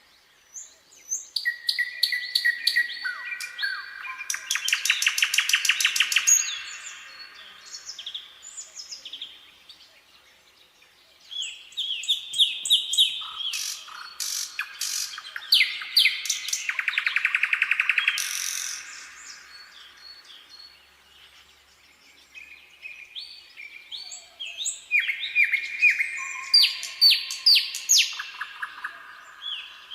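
Nightingale singing: three long song phrases of varied whistles and fast rattling trills, separated by short pauses.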